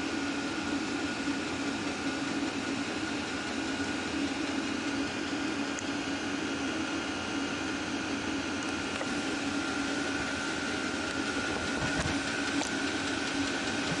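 Vevor diesel air heater running steadily: a constant hum with a higher whine above it.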